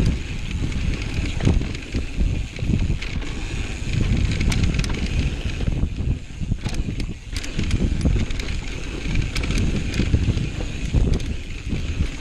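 Mountain bike riding down dry dirt singletrack: tyres rolling and crunching over dirt and small rocks, the bike rattling with irregular clicks over bumps, under steady wind noise on the microphone.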